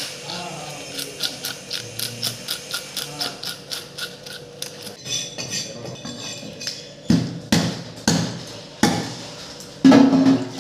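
Fish scales being scraped off with a multi-bladed scaler on a wooden chopping block, in quick, even strokes of about four a second. From about seven seconds in come five heavy knife chops onto the wooden block, the last the loudest.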